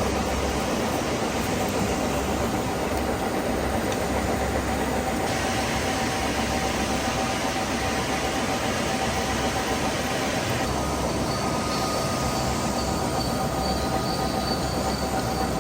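Machine shop noise from metal machining: a steady grinding, cutting sound with a faint high squeal running through it.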